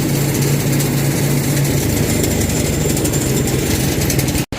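Small engine of a multipurpose shredding machine running steadily and unloaded, warming up so its parts are lubricated before shredding starts. Its low note shifts a little under two seconds in, and the sound cuts off abruptly near the end.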